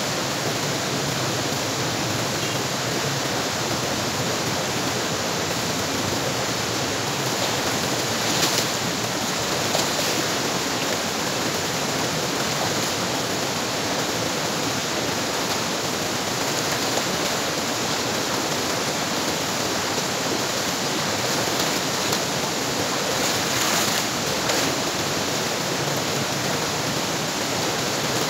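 Shallow rocky stream rushing steadily over rocks, with a few brief splashes as a person wades and rinses a sack in the water.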